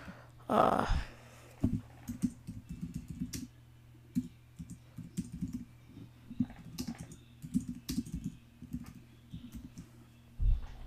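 Typing on a computer keyboard: irregular runs of quick keystrokes. A short rush of noise comes about half a second in.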